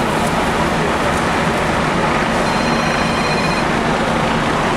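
FDNY fire apparatus diesel engines running steadily at high idle: a loud, even din with a low hum, and a faint high tone for about a second past the middle.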